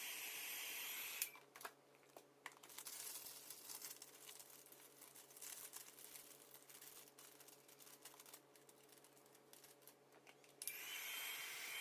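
A hair dryer clicks off about a second in, leaving quieter scattered clicks and crinkling as a plastic seal is handled. The hair dryer switches back on near the end with a steady blowing hiss.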